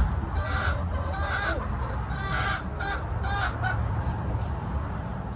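Hens squawking in a string of short, repeated calls, over a steady low rumble.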